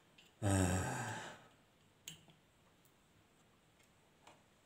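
A man's voiced sigh lasting about a second and fading out, followed by a faint click about two seconds in.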